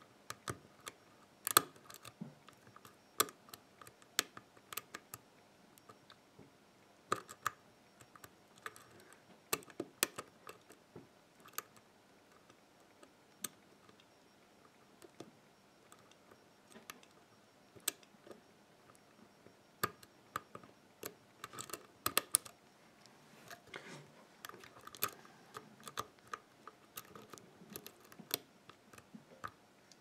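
Steel hook pick probing and lifting the pin stacks of a WILKA six-pin euro cylinder held under tension: sharp little metallic clicks and ticks at irregular intervals, with short quiet gaps between.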